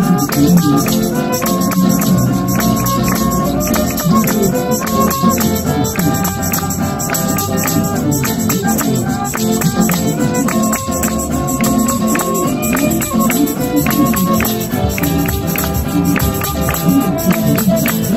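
Live praise-band music: violins carry a melody of held notes over acoustic guitars, with shaken rattle percussion keeping time.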